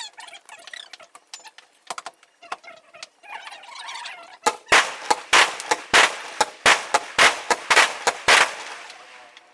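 Fireworks: faint scattered crackling, then about halfway through a rapid string of loud bangs, several a second, that stops abruptly a second before the end.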